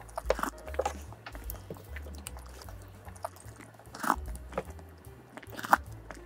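Close-miked eating of soft Oreo icebox cake soaked in milk: wet chewing and mouth sounds, with a few sharp clicks of a metal spoon against the container, the loudest about four seconds in and near the end.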